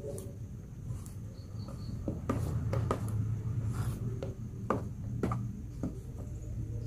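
Wooden spatula stirring thick martabak batter in a plastic tub, with irregular scraping knocks against the tub's sides, over a low steady hum.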